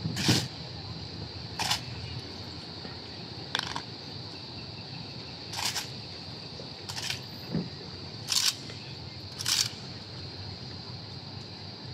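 Sharp clacks and slaps of a silent drill platoon's rifles being handled in unison, seven in all, one to two seconds apart, over a steady high-pitched hum.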